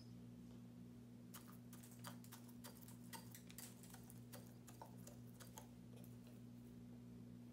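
Rooster pecking seed from a small glass jar: faint, irregular taps and clicks of the beak on seed and glass, starting about a second in, over a low steady hum.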